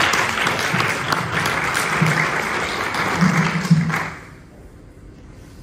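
Audience applauding, then dying away about four seconds in.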